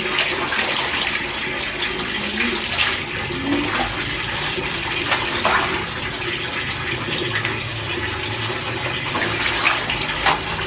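Clothes being hand-washed in a plastic bucket of water: wet fabric lifted, squeezed and plunged back in, with sloshing and occasional splashes, over a tap running steadily into a second bucket.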